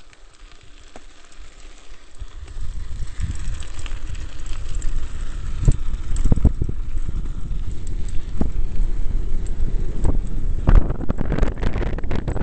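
Wind buffeting the camera microphone and mountain bike tyres rumbling over loose gravel on a fast downhill descent, with scattered rattling clicks from the bike. It starts fairly quiet and turns loud about two seconds in as speed builds.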